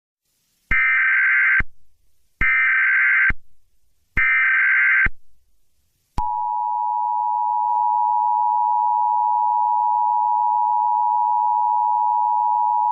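Emergency Alert System tones: three short bursts of buzzing SAME header data, each just under a second, then about six seconds in the steady, harsh two-tone EAS attention signal begins and holds.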